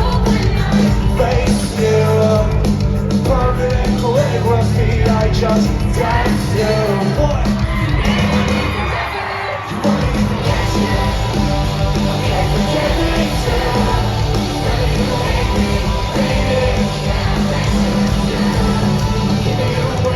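Live rock band playing loud through the venue's PA, with sung vocals and yells. The bass and drums drop out briefly about nine seconds in, then the full band comes back.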